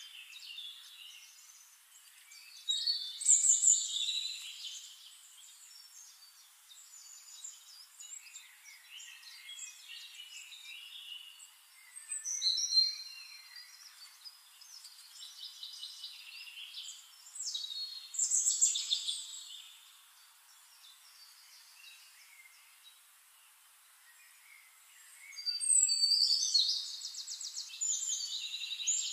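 Birds chirping and trilling in short bursts with quieter gaps between, the longest run of rapid trills near the end.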